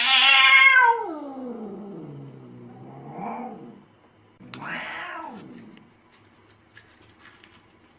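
A cat yowling: a loud drawn-out call that slides slowly down in pitch into a low moan, followed by two shorter meows about three and five seconds in.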